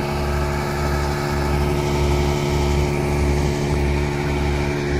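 Septic vacuum tanker truck running at a steady speed: an even engine hum with a low throb pulsing regularly underneath.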